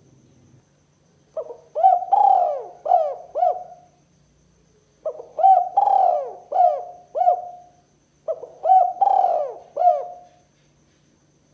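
Spotted dove singing: three phrases of four or five cooing notes each, a second or so apart.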